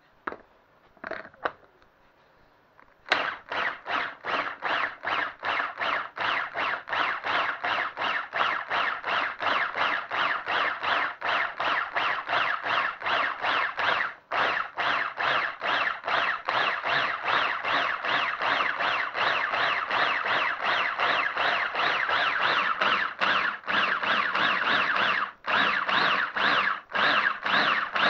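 A few clicks as the Bamix hand-blender motor is seated on its food-processor attachment, then about three seconds in the motor starts and runs on, its whine rising and falling quickly, two or three times a second, as it is pulsed to chop cooked carrots and butter beans into small pieces without turning them to a paste.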